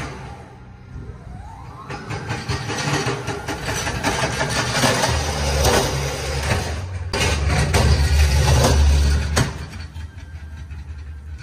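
Electric pallet truck running across a concrete warehouse floor: its motor whines rising as it pulls away, with a rattling clatter. A deep low hum swells in the middle and is loudest for a few seconds before dying away near the end.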